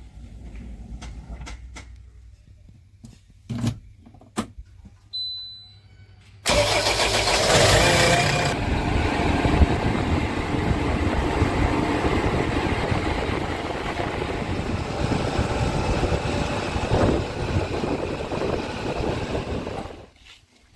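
Heavy diesel engine running hard under load. It cuts in suddenly about six seconds in, after a faint low engine rumble and a few sharp clicks, and drops away abruptly near the end.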